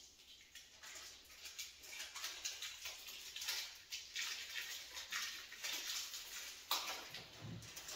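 Small sheet-metal screws being handled and packed: repeated light rustling and clicking, with a louder knock near the end.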